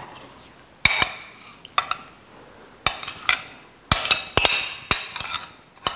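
A utensil scraping and clinking against a ceramic plate as soft butter is pushed off it: about eight irregular short clicks and scrapes, a few bunched together about four seconds in.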